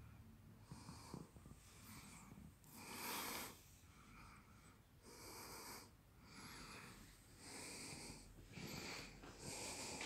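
Faint breathing close to the microphone, soft breaths in and out every second or so, a few with a slight whistle.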